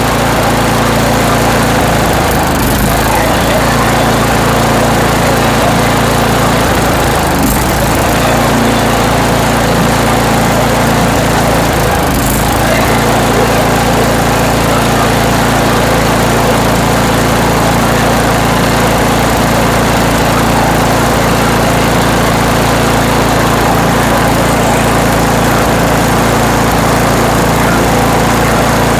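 Single-cylinder 8 hp Tecumseh engine on a Toro 828LE snowblower running steadily at full throttle while the main jet mixture screw on its carburetor is turned to tune the fuel mixture.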